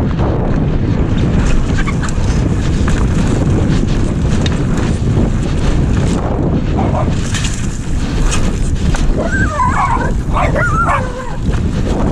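Strong wind buffeting the microphone in a steady low rumble, with a few high, wavering cries about nine seconds in.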